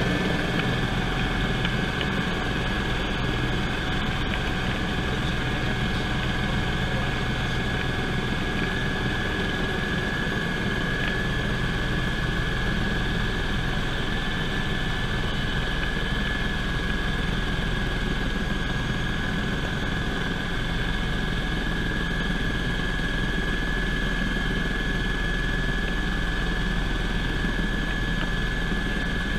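Cabin noise of a Eurocopter EC120 Colibri helicopter in flight: the steady drone of its single turboshaft engine and rotors, with a steady high whine over a low hum.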